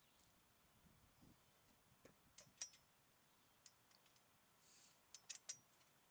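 Faint, scattered small metallic clicks as a bolt, washer and nylon lock nut are fitted by hand into a joint of a metal seat frame, with several clicks close together near the end.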